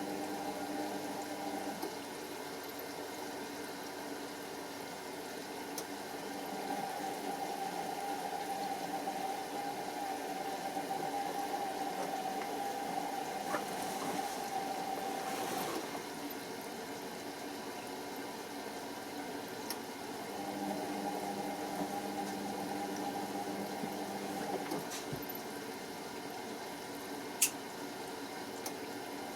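Pro Action A105QW washing machine filling with water while the drum tumbles the load to wet it: a steady rush of water with the drum motor humming in spells of several seconds, dropping away briefly between them. One sharp click near the end.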